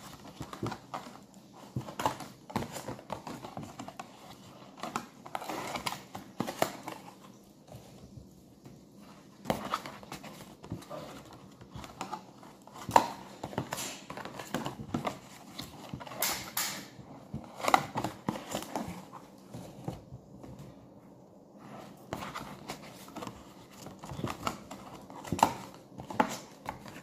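Paperboard takeaway box being folded and assembled by hand: irregular rustling and creasing of the card, with sharp snaps and taps now and then.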